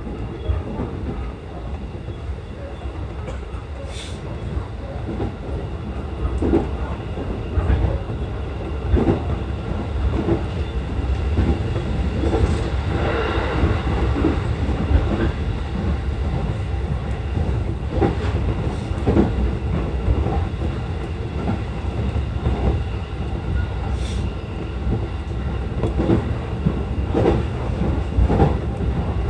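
E233 series electric multiple unit running along the track, heard from inside the driver's cab: a steady low rumble with repeated clicks as the wheels cross rail joints.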